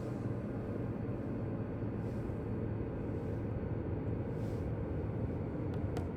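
A steady low rumble of room noise, with a few sharp taps near the end.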